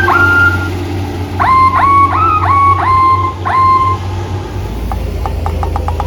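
Bus 'telolet' multi-tone air horn playing a quick tune of short notes, each note swooping up into a steady tone, over a steady engine hum. The tune stops about four seconds in, leaving a run of faint quick blips.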